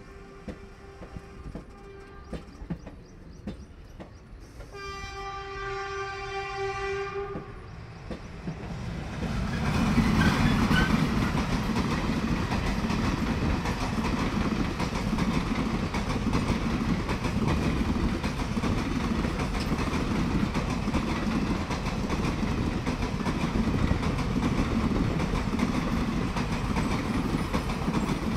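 WAP-4 electric locomotive's horn sounds one long blast about five seconds in, lasting two to three seconds, then the express train passes close by with a loud, steady rumble and wheel clatter.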